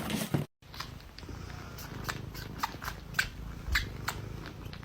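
A pet cat purring steadily, with a series of light clicks over it.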